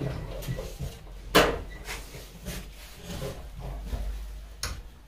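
Knocks and clatters of household things being handled and set down, the loudest a sharp knock about a second and a half in and another near the end, over a low rumble.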